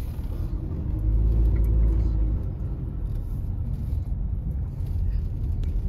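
Low, steady rumble of a car driving slowly, engine and tyres, swelling louder about a second in and then settling back.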